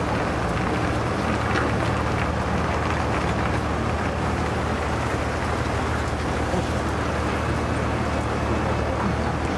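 Heavy-haulage truck and its multi-axle low-loader trailer rolling slowly past: a steady, low diesel drone with tyre and road noise, holding an even pitch throughout.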